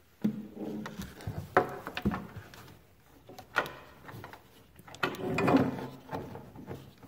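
Plastic corrugated split-loom tubing and a wiring connector being handled and pushed into place under a pickup's bed rail: scattered rustles and scrapes with a few knocks, and one sharp click about three and a half seconds in.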